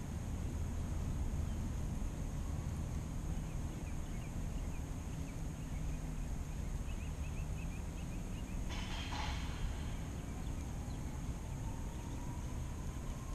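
Small electric motor on the boat humming steadily, with faint high chirps in the middle and a short noisy burst about nine seconds in.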